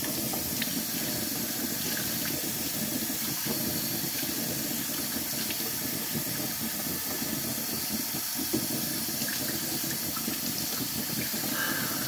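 Kitchen faucet running steadily, the water splashing over hair and into a stainless steel sink as the hair is rinsed.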